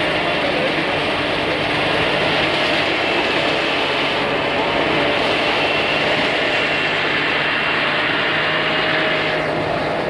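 Rice thresher machine running steadily: a constant mechanical drone with a held, high whine over it.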